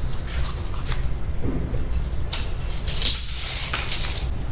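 Rustling and scraping handling noises, strongest about two and a half to four seconds in, over a steady low hum.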